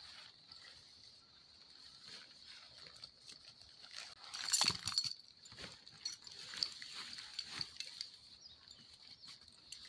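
Rustling and crinkling of a nylon rain poncho as it is pulled off, dropped and wrapped around a backpack, with the loudest flurry of rustles about four to five seconds in and smaller ones after.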